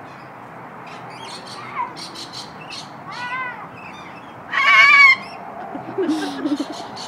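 White cockatoo calling: a short rising-and-falling call about three seconds in, then a loud, harsh squawk of about half a second a little later. Short clicks are scattered around the calls.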